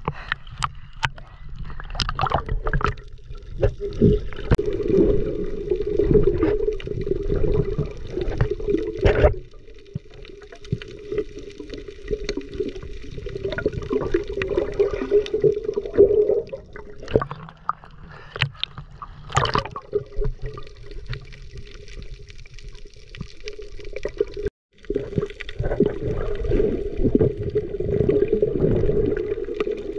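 Water gurgling and sloshing, with many irregular knocks and clatter, in a steady churn that eases off for a while in the middle. The sound cuts out completely for a moment about 25 seconds in.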